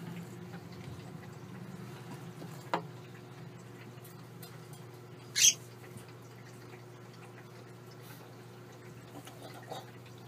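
Steady low room hum, broken by a single click about three seconds in and a short, sharp scratchy sound about halfway through, from a Syrian hamster pawing and scrabbling at the clear wall of its cage.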